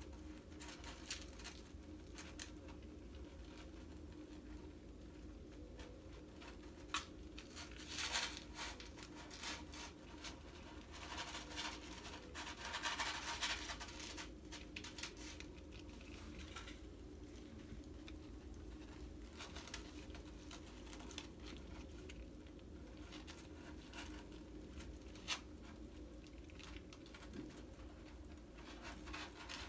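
Kittens moving about, eating dry kibble and digging in cat litter: faint scattered clicks and scratching, with a busier stretch of rustling scratches near the middle.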